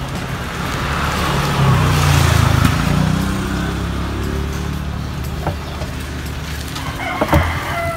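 A motor vehicle passing, its engine rumble and road noise swelling to a peak a couple of seconds in and then fading. A few light knocks follow as a fiberglass tweeter horn is set into its opening in a wooden speaker cabinet, and a rooster crows near the end.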